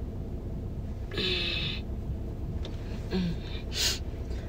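A person sighing and blowing out breath in a car's cabin: a long breathy exhale about a second in, a short hummed note, then a quick puff of breath near the end, over a low steady hum.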